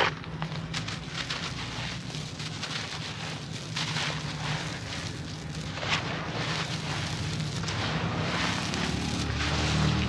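Dry crumbled red concrete and gravel scooped by hand and poured through the fingers onto the ground: a continuous gritty stream of tiny ticks as the grains fall, with a sharp click right at the start and another about six seconds in.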